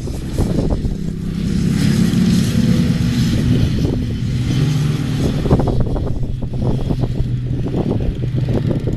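Fiat farm tractor's diesel engine running steadily as it works the field, a low drone that shifts slightly in pitch, under heavy wind noise rumbling on the microphone.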